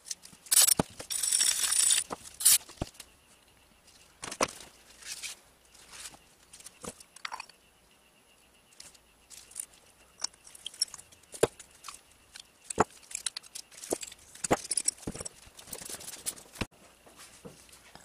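Handling noise from small metal parts of an Onan generator carburetor being worked on by hand: scattered clicks and light taps of metal on metal and on the bench, with a short, louder rustling noise about a second in.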